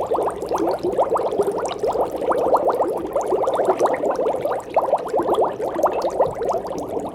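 Aquarium water bubbling steadily: a dense stream of quick bubble pops, with a faint steady low hum beneath.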